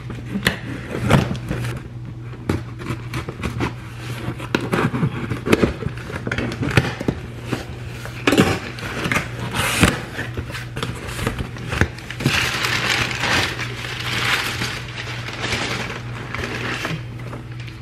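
Handling noises: scattered knocks and clicks, with a few seconds of denser rustling starting about twelve seconds in, over a steady low hum.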